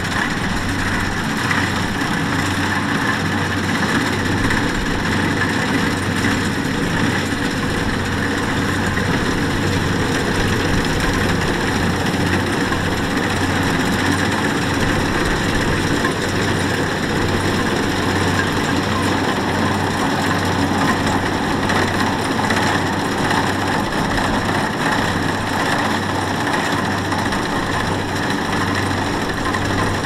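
Rice combine harvester's engine running steadily, a constant mechanical hum.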